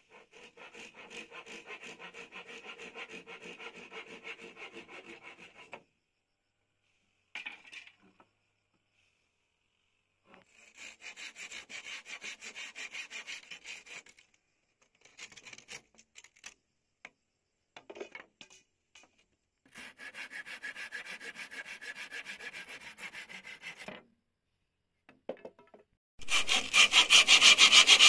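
Hand saw cutting wood in quick back-and-forth strokes, about three a second, in four bouts with short pauses between them; the last bout, near the end, is much louder.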